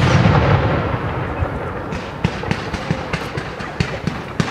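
Fireworks display: a shell burst's boom rumbles and fades over the first second or so. From about two seconds in comes a string of sharp crackling pops, several a second.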